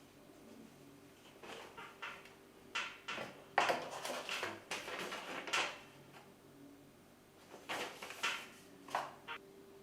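Packaging and a small device being handled: scattered clicks and taps, a denser stretch of rustling in the middle, then a few more clicks near the end.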